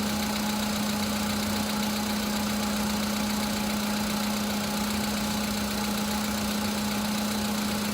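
2015 VW Polo's 1.6 CFNA four-cylinder petrol engine idling steadily during warm-up after a cold start, with a cold-start knock from the pistons fading out as it warms; the pistons were later replaced under warranty for it.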